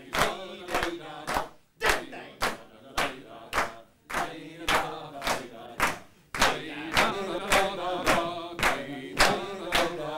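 A group of people singing together while clapping hands in a steady rhythm, about two claps a second.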